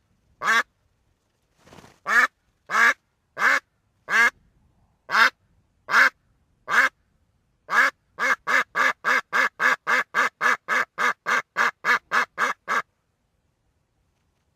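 A duck quacking: single quacks every half-second to second at first, then a fast even run of about three quacks a second that stops a couple of seconds before the end.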